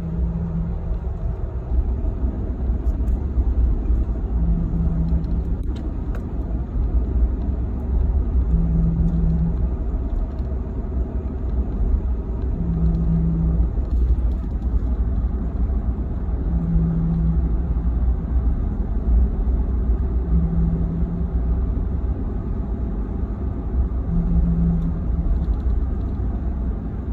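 Inside a 2017 Chevrolet Silverado 1500 cab at a steady 39 mph, a brief tone sounds for about a second and recurs roughly every four seconds over the steady rumble of road and drivetrain. This is an unidentified noise that appeared after a new transmission was installed.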